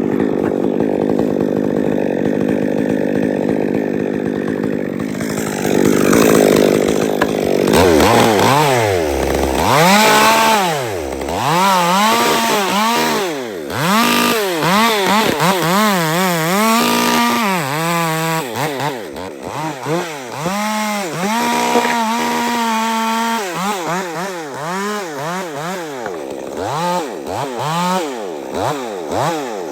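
Chainsaw working through dead wood: held at full throttle for the first few seconds, then revved up and down over and over, its pitch rising and falling, with a short steady stretch about two-thirds of the way through.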